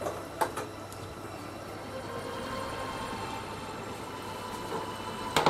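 A steady low mechanical hum, with a couple of light clicks about half a second in and a sharper metallic click near the end as a hammer head is handled on a steel welding bench.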